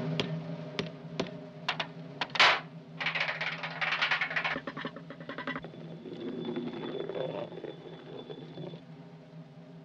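Cartoon sound effects of an ink bottle tumbling down a roof. It clicks as it bumps along, hits harder about two and a half seconds in, then rattles busily for a second or so as it runs down the drainpipe. Under it all a low held note from the orchestral score goes on.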